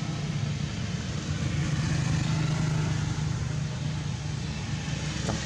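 A motor engine running steadily in the background, a low even hum.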